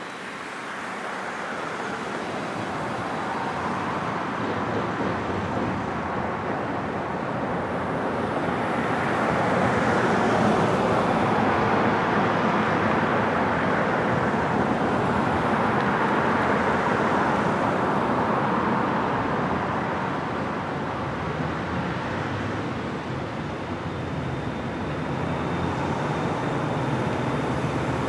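Double-stack container freight cars rolling over a steel girder bridge: a steady rumble and clatter of wheels on rail, swelling through the middle, with road traffic passing beneath. A faint high whine comes in near the end.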